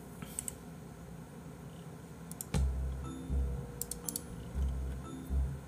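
A few light, scattered clicks over a quiet room, joined about halfway through by soft low thuds.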